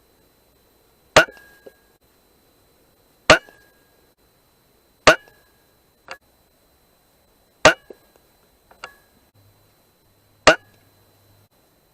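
Five rifle shots at uneven gaps of two to three seconds, each a sharp crack with a brief ring; after some shots a fainter click follows.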